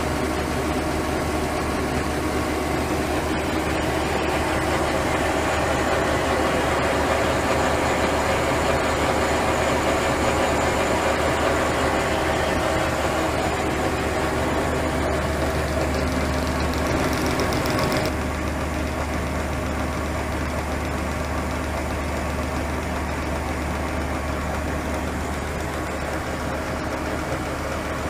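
Grain-bag unloader (AGRAR-bag ex bag) running steadily as it draws grain out of a plastic silo bag: a constant machine drone with many steady tones. About two-thirds of the way through the sound drops a little in level and changes in tone.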